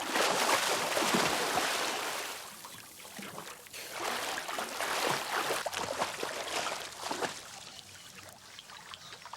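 Water splashing and sloshing as penguins swim. It is loudest in the first two seconds, surges again about four seconds in, then fades.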